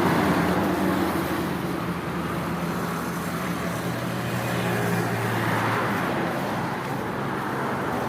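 Road traffic: a motor vehicle's engine hum and tyre noise, easing off over the first couple of seconds and then holding steady.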